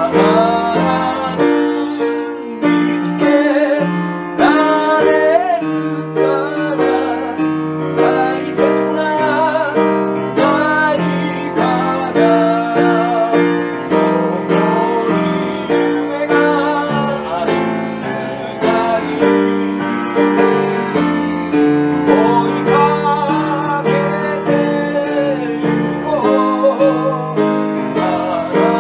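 A man singing in Japanese with vibrato on held notes, accompanying himself on piano.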